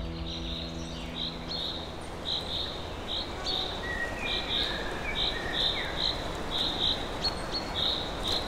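Outdoor nature ambience of high-pitched chirping repeating a couple of times a second, with a few fainter calls in the middle and a low steady rumble underneath. Soft held music notes die away in the first two seconds.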